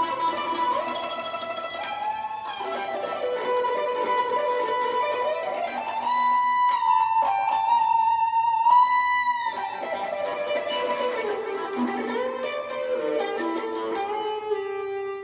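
Fender Telecaster electric guitar playing a solo line of single sustained notes. Strings are bent up to a high note that is held with vibrato around the middle, then the line glides back down in lower notes.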